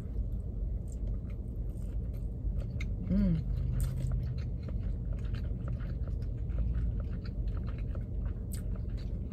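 Close-up mouth sounds of someone chewing a bite of salmon nigiri sushi: many small wet clicks and smacks over a low steady rumble. A short hummed 'mm' comes about three seconds in.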